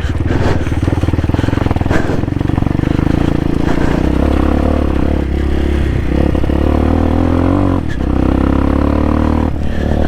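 A 2020 CSC TT250's single-cylinder four-stroke engine running under load, its pitch rising and falling, with a brief drop near 8 seconds in, as the dirt bike rides through a water-filled, muddy stretch.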